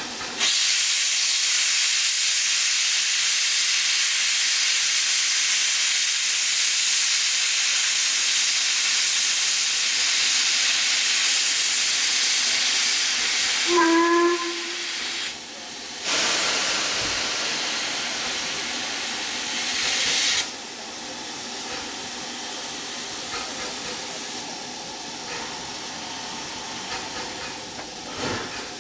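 Steam hissing from an LMS Princess Coronation Class Pacific steam locomotive: a loud, steady hiss of escaping steam for about fifteen seconds, with a brief whistle toot about fourteen seconds in. Then more hissing from the open cylinder drain cocks as the engine gets under way, quieter near the end.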